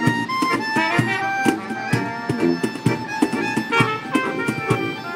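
Balkan brass street band playing a lively tune led by piano accordion and trumpet over a bass line, with a steady beat of about two strokes a second.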